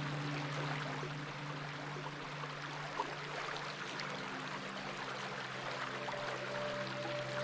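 Stream water running steadily, with soft held low music notes underneath; a higher note comes in near the end.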